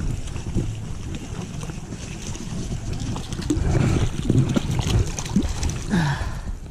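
A hooked trout thrashing and splashing at the surface of a stream as it is played in toward a landing net, with irregular splashes and water sloshing, busiest a little past halfway.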